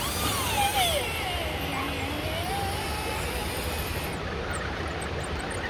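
Electric motor and gear whine of an RC rock crawler climbing, the pitch rising and falling as the throttle is worked. A high hiss stops about four seconds in.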